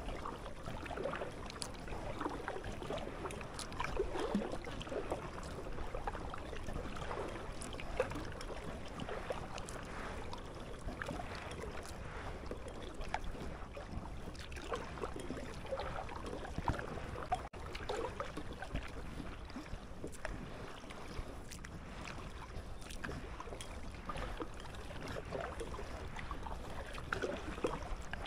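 Kayak being paddled: the paddle blades dip and splash at irregular intervals and water laps at the hull, over a low steady rumble.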